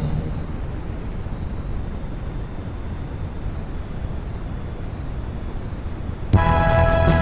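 Steady low rumbling noise, a synthesized sound-effect patch from a SAM2695 General MIDI synth chip, with faint ticks about every 0.7 s. About six seconds in, a louder pitched synth sound with several held notes cuts in.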